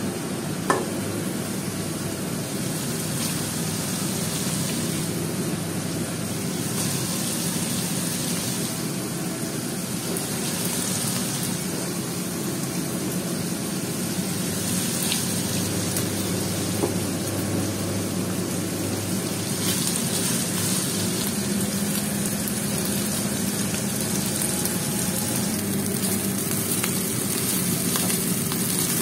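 Fried rice frying in a hot wok: a steady sizzle throughout, with a sharp knock about a second in and another midway.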